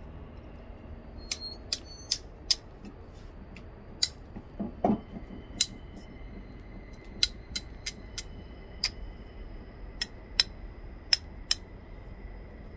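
Flat copper bar tapping along the edge of a chert biface: a run of sharp, irregular clicks, a fraction of a second to a second apart, as small flakes are knocked off to bevel the edge before a thinning strike.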